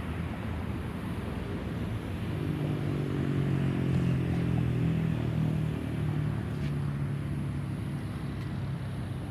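Airbus A320's CFM56 turbofan engines passing overhead: a low rumble with a droning hum that swells about two seconds in, is loudest in the middle, then slowly fades.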